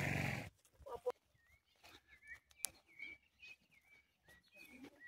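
Faint songbird chirping: short repeated chirps, a few every second, over quiet outdoor background. A brief noisy burst opens it, and there is one sharp click about two and a half seconds in.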